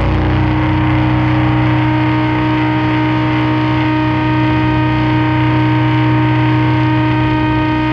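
Sludge doom music: heavily distorted guitars hold one sustained, droning chord, without drums or vocals.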